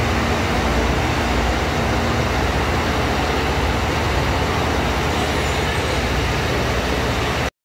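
Diesel locomotive and its passenger train running close beside a station platform: a loud, steady rumble with a faint hum in the first two seconds. The sound cuts off suddenly near the end.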